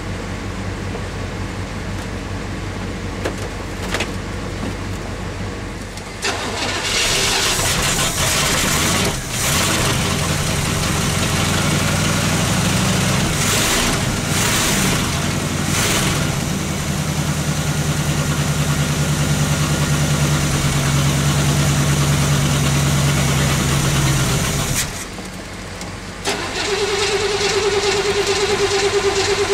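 Chevy 350 small-block V8 cold-starting after sitting about eight months: about six seconds in it catches and runs loudly, revved in bursts, then settles into a steady run. It cuts off sharply near the end, and after a short pause a different steady whirring with a constant tone and rapid ticks begins.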